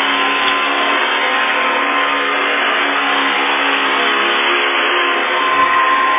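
Hoover Convertible High Performance upright vacuum cleaner running steadily, a constant motor hum and whine over the rush of air, its brush roll turning on new bearings.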